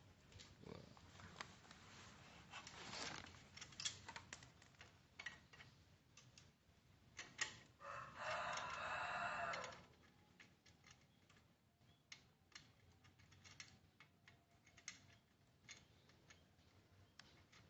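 Scattered light clicks and taps of hand tools and metal parts while a horn is fitted to a motorcycle. About eight seconds in, a steady pitched tone sounds for just under two seconds, the horn being test-sounded.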